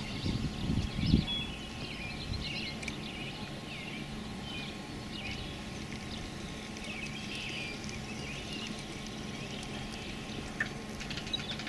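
Birds chirping and calling in short, quick notes, busiest in the first half, over a steady low hum, with a few dull thumps in the first second or so.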